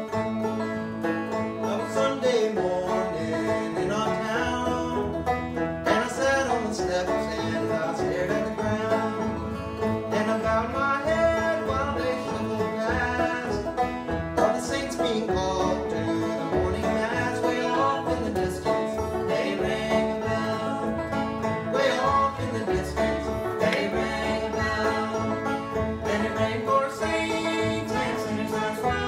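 Acoustic string band playing an old-time tune, with banjo, acoustic guitar, upright bass and fiddle.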